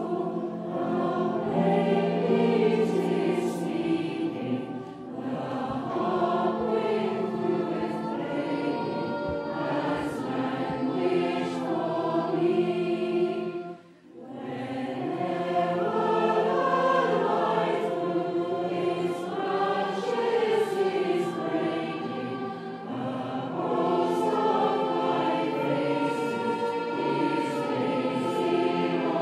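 Choral music: many voices singing slow, sustained chords with moving melodic lines, with a short break about halfway through.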